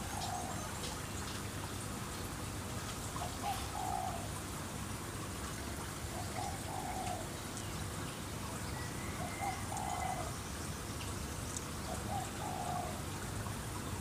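A dove cooing, a short note then a longer one, repeated about every three seconds, over a steady hiss of trickling water.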